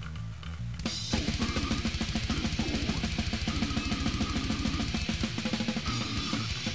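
Rock music: a bass riff on its own, then about a second in drums and guitar come in with fast, dense drumming that keeps going.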